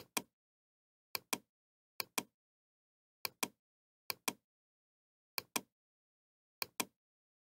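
Computer mouse clicks: seven pairs of sharp clicks, evenly spaced about a second apart.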